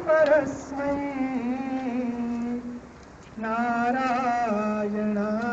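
Sanskrit mantra chanted in long, drawn-out notes: two phrases, each settling onto a lower held note, with a short pause for breath about three seconds in.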